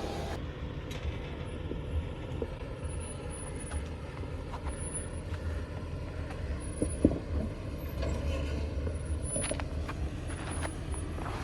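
Jeep Wrangler engine running low and steady as it crawls in low gear over rock, with a few short knocks and scrapes from the rig working over the ledges, the sharpest about seven seconds in.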